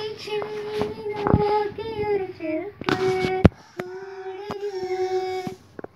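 Two girls singing together in long held notes, with no accompaniment heard. A few sharp clicks cut through, the loudest about three and a half seconds in.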